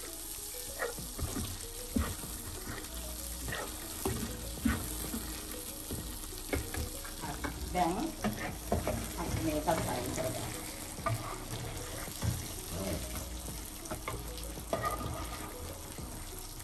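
Whole prawns frying in hot oil in a non-stick pan, sizzling steadily. The taps and scrapes of a slotted spatula turning them are thickest in the middle.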